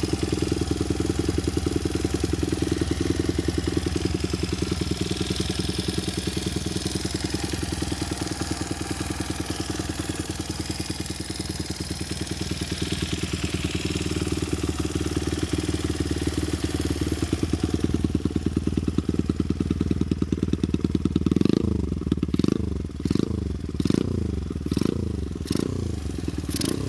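Honda Ape 50 single-cylinder four-stroke engine running at a steady idle, then from about 21 seconds in revved in short blips, the revs rising and falling about eight times. It runs without abnormal noise.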